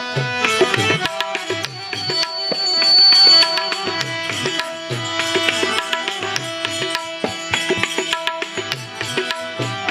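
Instrumental break in a bhajan: tabla playing with steady held melody notes over it. A high sustained note from about two to three and a half seconds in is the loudest part.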